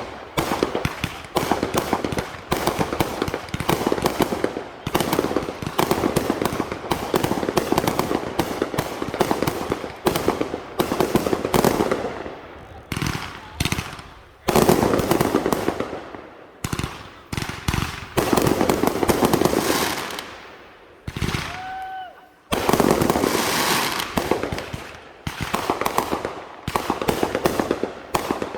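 Fireworks going off in a continuous barrage of rapid crackling and bangs, with a short lull about three-quarters of the way through before the crackling starts up again.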